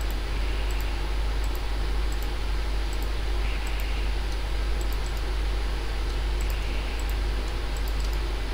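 Faint computer mouse clicks, repeated every second or so as points are placed on screen, over a steady low electrical hum and hiss.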